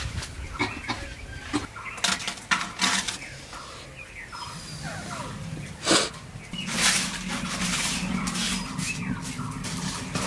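Dry leaves rustling and crackling as they are gathered and stuffed into a clay mud stove. About two-thirds of the way in this gives way to a steadier rushing crackle as the leaf fire catches.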